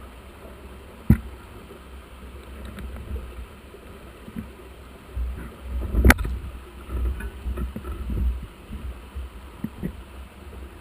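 Low, gusting rumble of wind on the microphone, with sharp knocks about a second in and a louder one about six seconds in, and a few smaller knocks between.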